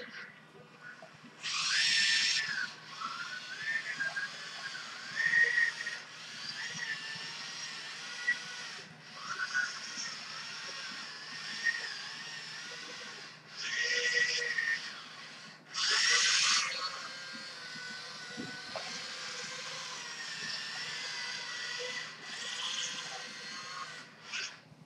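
Dagu RP5 tracked robot chassis driving about, its small electric drive motors and gearboxes whining, the pitch gliding up and down as speed changes under proportional tilt control. There are several louder full-speed runs, about two seconds in and again around fourteen and sixteen seconds.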